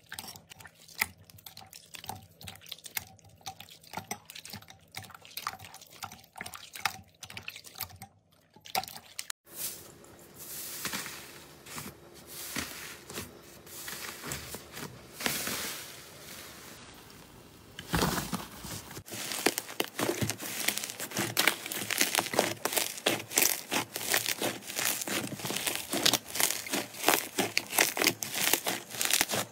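Slime worked by hand, in three short clips. First come wet squelches and drips as clear slime is squeezed in a bowl of water. About nine seconds in there is softer squishing of fluffy pink slime, and from about eighteen seconds in dense crackling and popping as fluffy purple slime is pressed and stretched.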